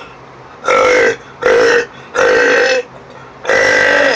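Four loud, deliberate burps in quick succession, each lasting about half a second, made for a burping contest.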